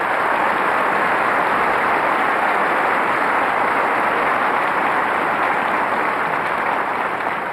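Large audience applauding steadily, starting to die away near the end.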